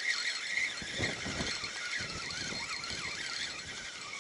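Spinning reel being cranked against a hooked perch, squeaking and whirring in a wavering way, with low rumbles of wind buffeting the microphone about a second in and again around two seconds in.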